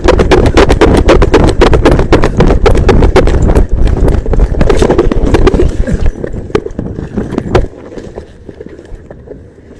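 Fast running footsteps with the body-worn camera jolting and rattling at each stride, over heavy wind buffeting on the microphone, during a foot chase. The pounding and rumble stop abruptly about seven and a half seconds in, leaving quieter rustling.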